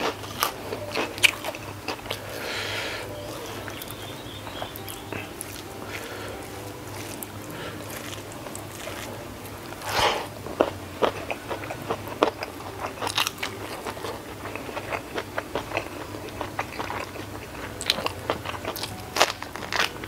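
Close-miked eating sounds: irregular crisp crunches of a puffed white kerupuk cracker mixed with wet chewing of rice and sambal. The loudest crunches come about halfway through and again near the end.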